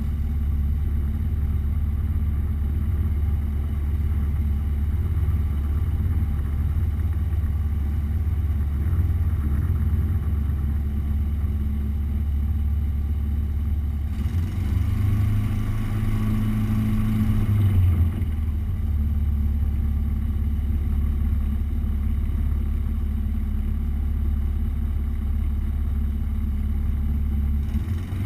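Light floatplane's propeller engine running steadily while taxiing on the water, a continuous low drone. About halfway through its pitch rises for a few seconds, then settles back to the steady drone.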